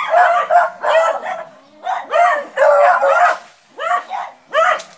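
A dog barking over and over, in quick runs of several barks with short pauses between them.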